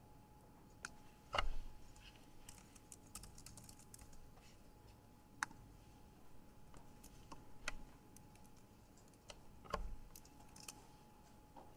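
Computer keyboard typing in scattered key clicks, with a quick run of keystrokes about three seconds in and two heavier thumps, about a second and a half in and near the end, over a faint steady hum.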